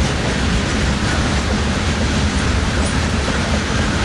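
Loaded covered hopper cars of a freight grain train rolling past, a steady rumble of steel wheels on rail.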